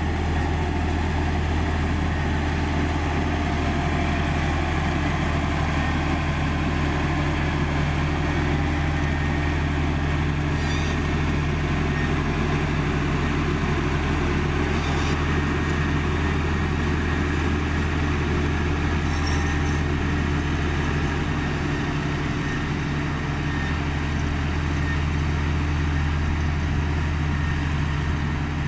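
Komatsu GD555 motor grader's diesel engine running steadily at a constant speed.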